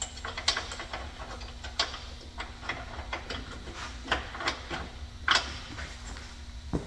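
Scattered clicks and knocks of hand work on the underside of a car, at irregular times, the loudest about five seconds in, over a steady low hum.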